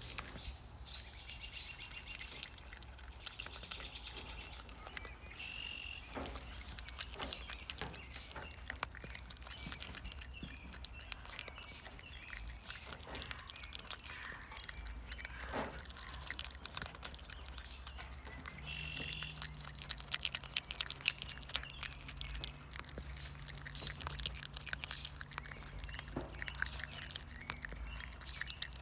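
Wild birds chirping and calling, with scattered small clicks and a low steady hum that comes in about two-thirds of the way through.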